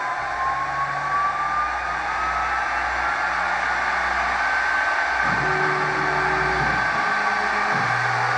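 CNC machine running: a steady whir with a thin whine that slowly rises in pitch, and lower motor tones that start and shift pitch about five seconds in and again near the end as the machine moves.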